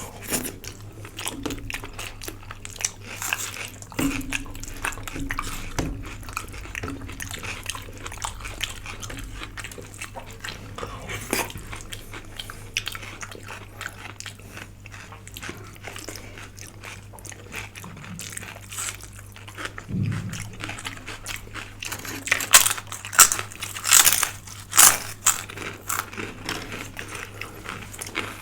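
Close-up eating sounds: a person chewing a meal of rice, dal and vegetables, with irregular wet mouth clicks. Near the end come a few louder, sharper crunchy bites.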